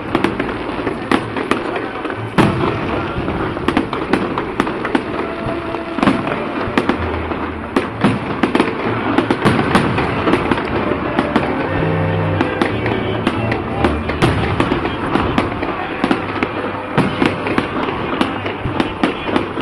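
Fireworks going off continuously: many sharp bangs and crackles in quick, irregular succession.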